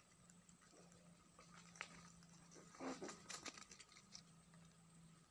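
Near silence with a faint low hum, broken by soft scratchy clicks and rustles of rabbits foraging close to the microphone, busiest about three seconds in.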